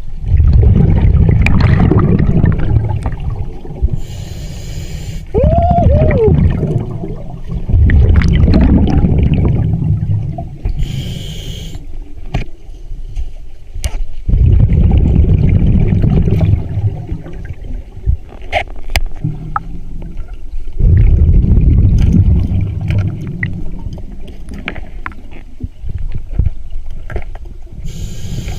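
Underwater bubbling and gurgling coming in loud, low bursts every few seconds, with quieter stretches between. A short squeaky tone rises and falls about five and a half seconds in.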